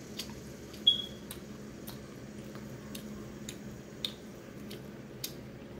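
Close-up mouth sounds of a person chewing food: faint wet clicks and smacks scattered throughout, with one sharp, short squeak-like click about a second in.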